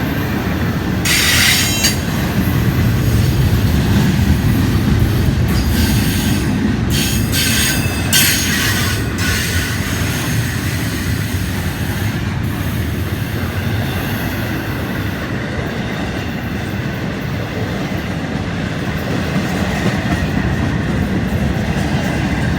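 Freight train's empty container well cars and flat cars rolling past close by: a steady, loud rumble of steel wheels on rail, with brief bursts of high-pitched wheel squeal about a second in and again around six to nine seconds in.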